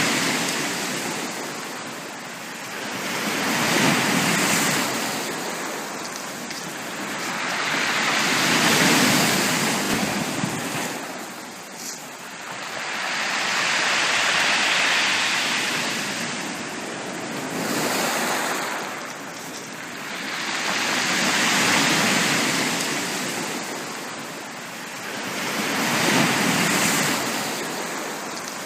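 Sea waves breaking and washing up a beach, a swell of rushing surf about every four to five seconds that rises and falls away.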